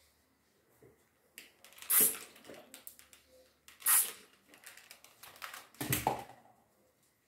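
Hand-pump water spray bottle misting the watercolour paper: two short hissing squirts about two seconds apart, then a third, heavier one with a thud about six seconds in, among light clicks of handling.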